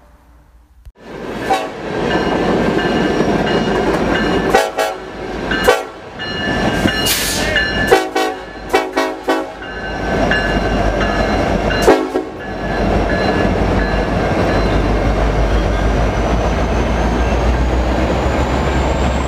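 A diesel freight locomotive and its train rolling past with a steady heavy rumble, starting about a second in. The locomotive horn sounds in several short blasts through the middle.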